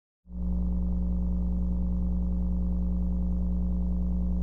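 Low mains-frequency buzz from a PA system, coming on suddenly about a quarter second in and then holding perfectly steady: a low tone buzz typical of a grounding fault, the kind the ground lift on a DI box is meant to cure.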